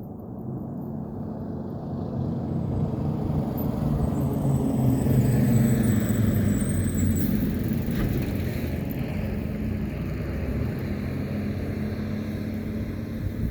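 A motor vehicle driving past, its engine and tyre rumble building to a peak about halfway through, then easing off slowly.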